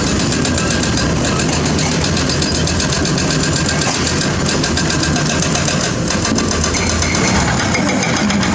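Diesel engine of heavy construction equipment running steadily, with a fast, even clatter.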